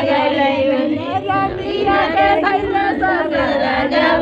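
A group of women singing a traditional Bihari wedding folk song together, several voices overlapping.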